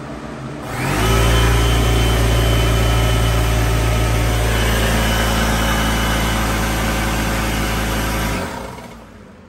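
Electric air compressor starting up about a second in and running steadily with a loud low hum. About eight seconds in it cuts out and winds down, because the 600 W portable power station feeding it has shut off on overload while the compressor draws over 1000 W.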